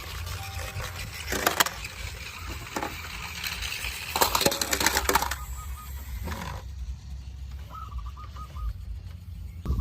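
Small diecast toy vehicles clattering and clinking as they are handled, in two short bursts: one about a second and a half in, and a longer one around four to five seconds in.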